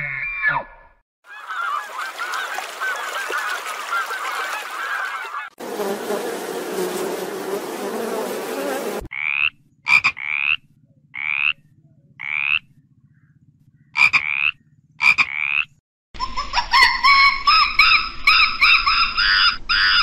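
A frog calling in about eight short croaks, each rising in pitch, spaced irregularly over several seconds. Before the croaks come two stretches of rough rasping noise. After them, from about four seconds before the end, a group of monkeys gives a dense run of overlapping shrill calls.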